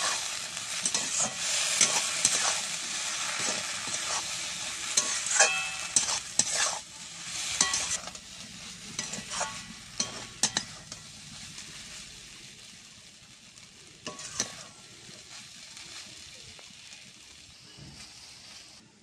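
Soaked puffed rice sizzling as it fries in a metal kadai while a metal spatula stirs it, scraping and knocking against the pan. The sizzling and stirring are loudest in the first half and die down toward the end.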